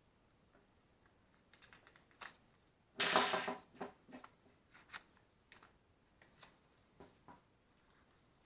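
Small hard objects being handled: scattered sharp clicks, with a short clattering rattle about three seconds in.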